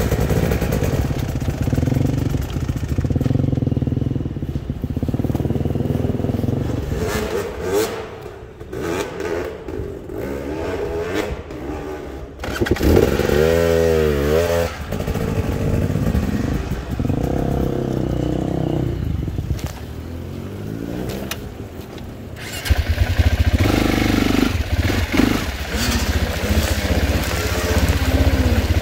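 Dirt bike engines running at low speed on a rocky trail, their note rising and falling as the throttle is worked. About halfway through one engine revs up and back down, and near the end the engine sound grows louder and fuller.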